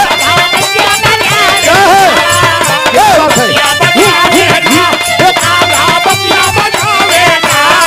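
Live Bhojpuri biraha folk music: harmonium and dholak playing, with a steady beat of percussion strikes and notes that slide up and down.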